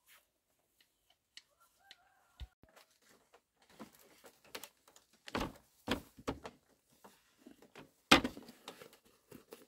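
Scattered knocks and thumps, as of objects being handled and set down, the loudest about eight seconds in.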